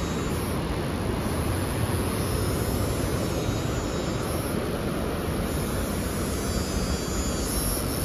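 Wind blowing steadily across the microphone, a low, even noise with no breaks.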